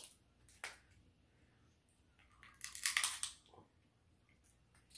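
Shellfish shells cracking and crunching as they are broken open by hand: a single click about half a second in, then a longer, louder stretch of crackling around three seconds in.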